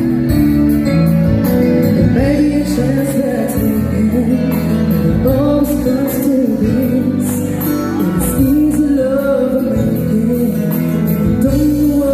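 Live band playing a song over a loud PA, a woman singing the melody over amplified guitars and drums.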